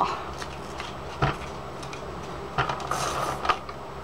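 Scotch ATG 700 adhesive transfer tape gun being worked across paper: a few sharp clicks and a short rasping whir from its tape mechanism, over a low steady hum.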